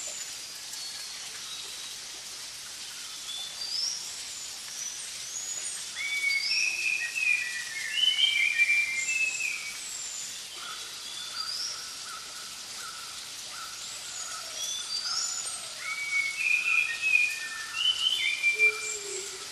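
Forest birds singing: many short whistled notes rising and falling, over a steady hiss. From about halfway, one bird repeats a lower note about twice a second.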